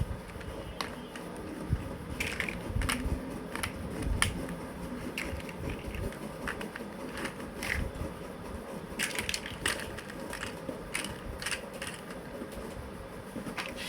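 Plastic building blocks clicking and clattering as they are handled and pressed together: a run of irregular, sharp little clicks.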